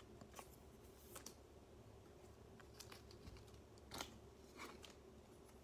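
Faint, soft clicks and crinkles of trading cards being handled and slid into thin plastic sleeves, a few scattered small sounds over a low room hum.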